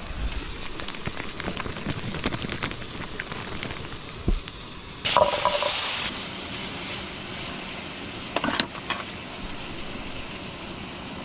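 Sausages and strips of pork frying in a stainless steel pan on a camping stove, a steady sizzle. About five seconds in the sizzle flares up briefly as garlic cloves are tipped into the hot pan, and a few sharp knocks follow a little later.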